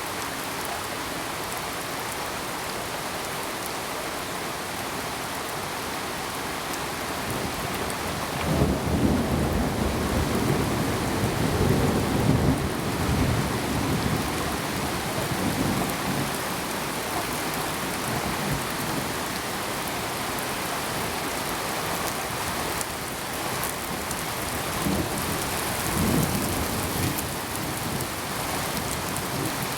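Steady rain, with thunder rolling in about a third of the way through and rumbling for several seconds, then a shorter rumble of thunder near the end.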